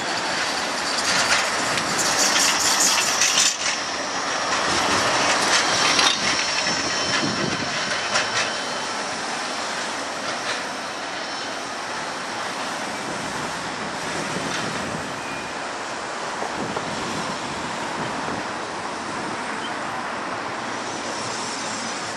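Bombardier Flexity 2 tram running on street track. Its wheels on the rails are loudest over the first eight seconds, with a high-pitched hiss and a few sharp clicks, then settle to a steadier, quieter rumble.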